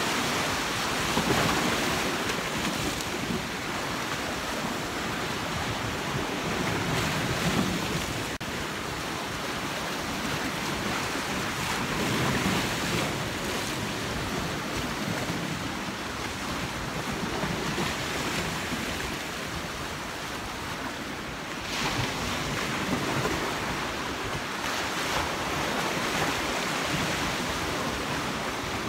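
Sea surf breaking against rocks, swelling and easing in surges every few seconds, with wind rumbling on the microphone.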